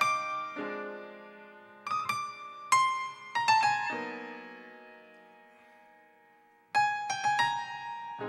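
Solo acoustic piano playing a slow, free-time passage of chords and short runs. About four seconds in a chord is left ringing and slowly dies away, and a new phrase of struck notes starts near the end.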